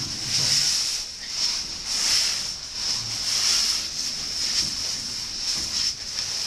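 Caving oversuits rustling and scraping against wet rock as cavers crawl on their bellies through a low crawlway, in uneven shuffling surges over a steady high hiss.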